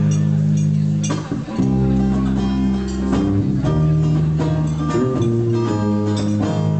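Live acoustic guitar strumming chords over an electric bass guitar, with no vocals. The playing thins briefly about a second and a half in, then the low bass notes fill back in.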